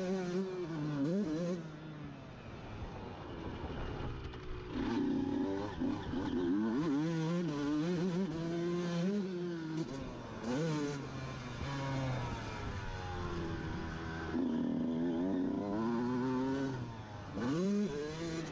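Two-stroke Honda CR dirt bike engine revving hard and dropping back over and over as the rider accelerates, shifts and rolls off around a motocross track, heard from on board.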